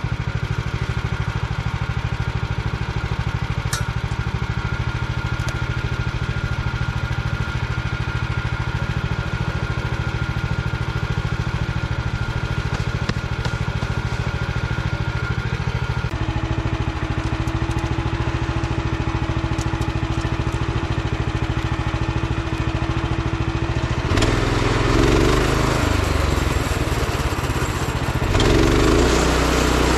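Woodland Mills HM130Max band sawmill's engine running steadily. About three-quarters of the way through it grows louder and rougher as the saw head is pushed through a log.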